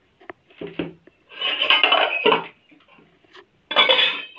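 Kitchen utensils and containers being handled: a few light knocks, then two spells of clattering and scraping, a longer one about a second and a half in and a shorter one near the end.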